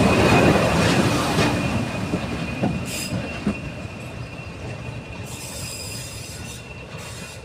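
Class 40 diesel locomotive D345 and its train pulling away: engine noise and wheels with a few sharp clicks over rail joints in the first few seconds, fading steadily as the train draws away, over a steady high-pitched squeal.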